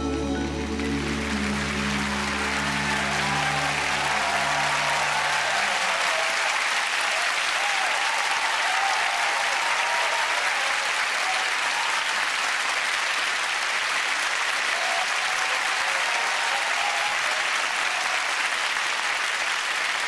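Audience applause, loud and steady, rising as a song ends. The band's last held chord sounds under it and stops about six seconds in.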